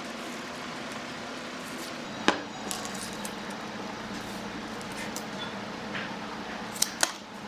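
A few sharp clicks and taps of hand tools, a tape measure and pen handled on a wooden board, over a steady low hum. The loudest click comes a little over two seconds in, and two more come close together near the end.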